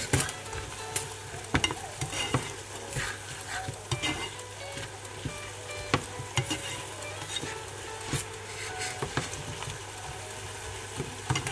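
Spatula stirring a tomato, onion and capsicum sauce in a non-stick frying pan, with irregular knocks and scrapes against the pan over a steady sizzle.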